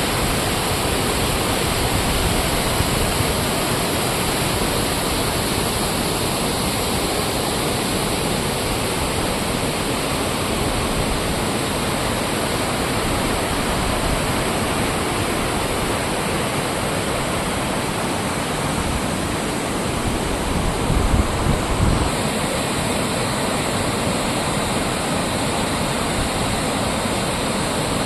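Waterfall pouring, a steady loud rush of water noise, with a few brief low bumps about two-thirds of the way through.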